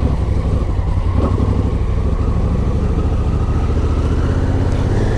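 Adventure motorcycle engine pulling away and running steadily along a dirt track, loud from the first moment, with a faint whine that rises slowly in pitch as it gathers speed.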